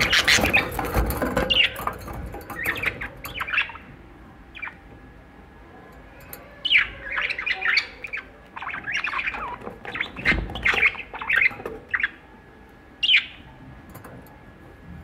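Budgerigars chattering and squawking in quick, jumbled bursts, with a lull of a couple of seconds about a third of the way in. A couple of dull bumps sound among the calls, near the start and about two-thirds through.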